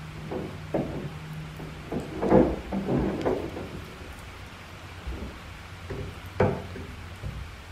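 Handling noise as a 3-inch polyurethane caster with a metal mounting plate is fitted against the foot of a wooden workbench leg: a series of light knocks and clunks, loudest about two and a half seconds in.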